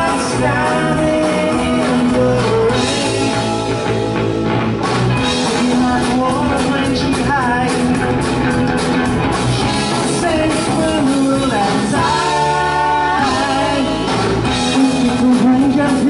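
Live rock band playing, with a male lead voice singing over electric guitar and drums; a long held sung note about twelve seconds in.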